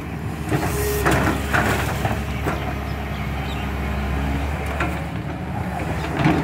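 LiuGong hydraulic excavator's diesel engine running steadily under load while the bucket digs into earth, with scattered short knocks and scrapes from the bucket and soil.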